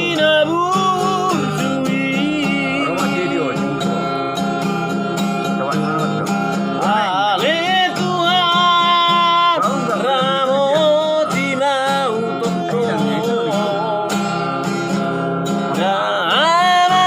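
Singing with wavering, vibrato-laden held notes over strummed acoustic guitar, a Batak-language song.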